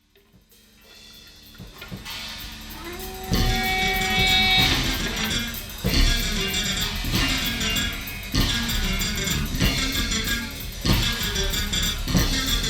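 Free-jazz band with electric guitar, bass and drums playing. The music fades in from silence and builds for about three seconds, then breaks into loud, dense ensemble playing with heavy accents about every two and a half seconds.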